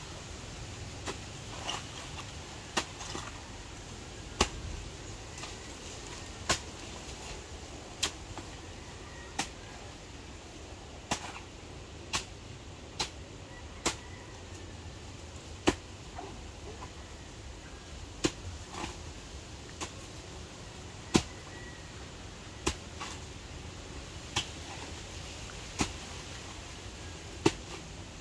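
Repeated sharp chopping strikes into a felled saba banana plant, about one every second and a half.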